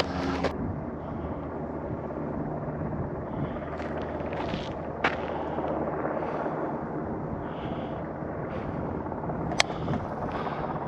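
Wind rumbling on the microphone, with footsteps crunching on a dirt trail and two short sharp cracks, about five seconds in and near the end.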